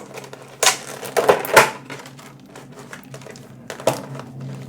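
Foil Pokémon booster pack wrappers and box packaging rustling and crinkling as they are handled on a desk. There are a few sharp crinkles in the first two seconds, then lighter clicks and taps.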